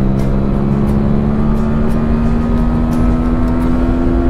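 TVS Apache 200's single-cylinder engine pulling steadily in a long third gear, its pitch climbing slowly and evenly as the bike gains speed, over a low wind rumble.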